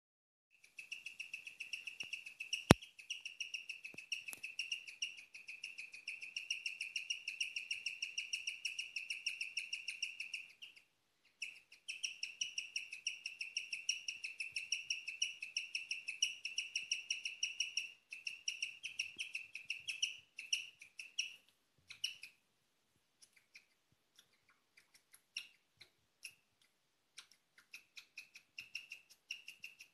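A Peruvian guinea pig chirping: a long, rapid, bird-like run of high chirps, a rarely heard call, that pauses briefly about ten seconds in, starts again, then breaks into scattered chirps before running on again near the end. A single sharp click sounds about three seconds in.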